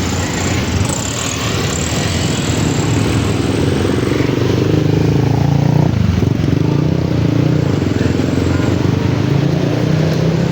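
Motor vehicle engines running close by in street traffic over a steady noisy hiss, the engine pitch shifting about six seconds in as vehicles pass.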